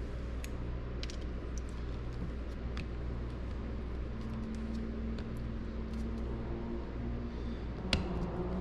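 Scattered small clicks and taps of a hand screwdriver and metal parts being worked on a power antenna motor assembly, the sharpest click near the end, over a steady low hum.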